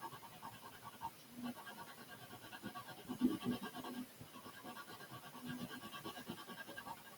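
Coloured pencil shading on textured paper: faint, quick repeated scratching strokes, a little louder a few seconds in.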